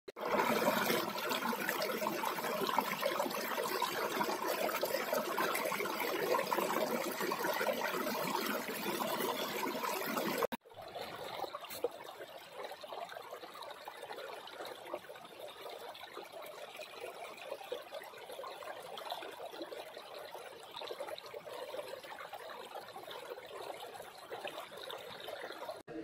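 Shallow rocky stream running over boulders in small cascades, a steady rush of water. About ten seconds in it cuts to a quieter stretch of the same kind of water.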